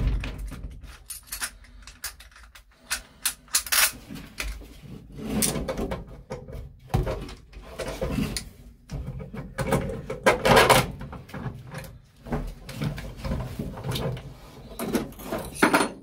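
Irregular clinks, knocks and scrapes of a bolt, washers and a seat-belt retractor being handled and set into place on the truck's rusty sheet-metal cab floor.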